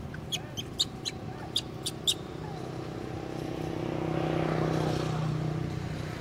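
A motor vehicle driving past, its engine hum swelling to a peak about four to five seconds in and then fading. In the first two seconds there are about eight short, sharp high chirps or clicks.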